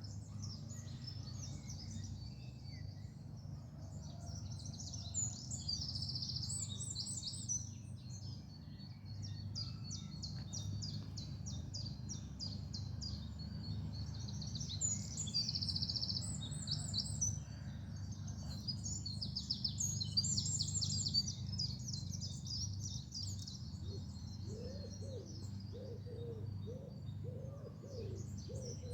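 Woodland songbirds singing, with rapid high trills and chirping phrases overlapping throughout. Near the end a low, repeated cooing call joins in, over a steady low rumble.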